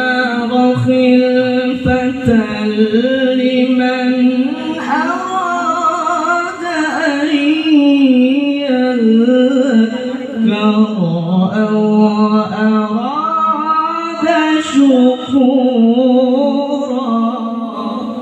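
A male qari reciting the Quran in melodic tilawah style into a handheld microphone: one continuous voice holding long, ornamented notes that slide and waver in pitch, amplified through the microphone.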